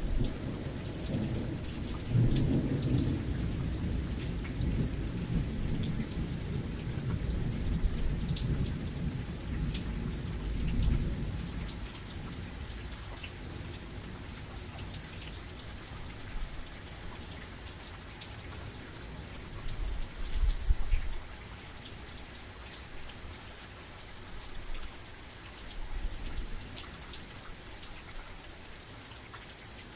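Steady heavy rain pattering down, with a long low roll of thunder through the first dozen seconds that fades away, and a shorter low rumble about twenty seconds in.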